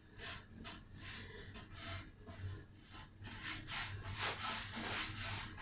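Paintbrush stroking paint onto a wooden nightstand: repeated short bristle swishes, about two or three a second, getting louder toward the end.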